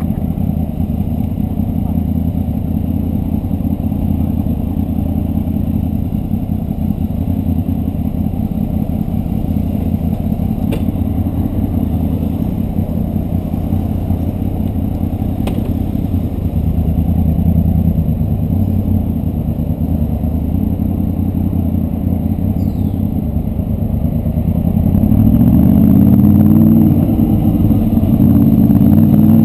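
Honda VFR Interceptor's V4 engine idling steadily, then pulling away about 25 seconds in, its pitch rising and falling as it accelerates.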